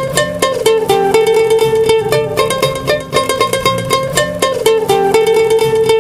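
Background music: a quick plucked-string tune, mandolin or ukulele-like, with fast repeated notes over a steady bass.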